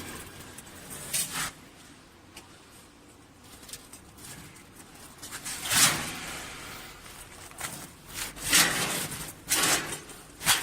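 A few short scraping or rustling noises, about six spread through the stretch with the loudest near the end, over a faint steady background.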